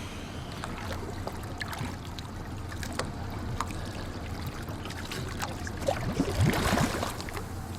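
Small fishing boat's engine running steadily with water sloshing and scattered clicks. About six seconds in comes a louder burst of gurgling, bubbling water.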